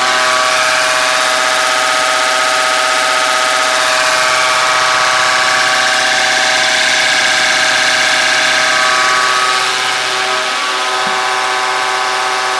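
Bosch diesel injection-pump test bench running an H-series inline injection pump: a loud, steady mechanical whine with many fixed tones, easing off slightly near the end.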